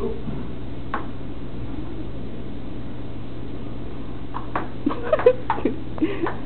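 Table tennis ball clicking off paddles and the table: a single hit about a second in, then a quick run of hits near the end, over a steady background hum.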